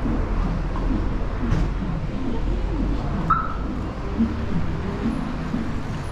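Town-centre street ambience: a steady low traffic rumble under a mix of faint wavering sounds, with one short high chirp about three seconds in.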